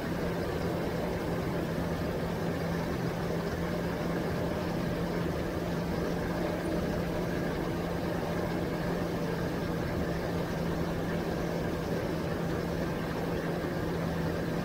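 Bass boat's outboard motor running steadily at speed with a constant drone, over the rush of water off the planing hull.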